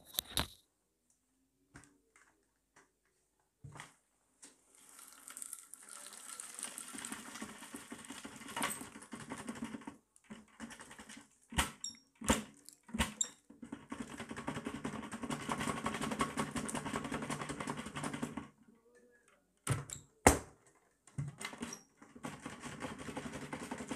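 Dry debris (lint, crumbs, paper scraps and small hard bits) being dumped out of a Dyson vacuum's bin onto a shag rug. It comes in long bursts of crackling and rattling, with several sharp clicks and knocks between the bursts.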